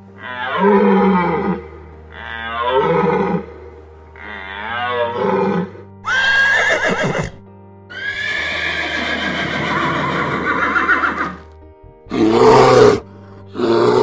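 A sequence of animal calls over steady background music: a deer bleating three times with a wavering pitch, then a horse whinnying in a long call from about eight to eleven seconds, then two short bear grunts near the end.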